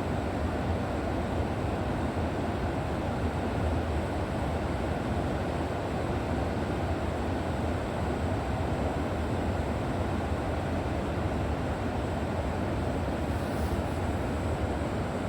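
River water rushing steadily, an even, unbroken noise that is deepest and strongest in its low range.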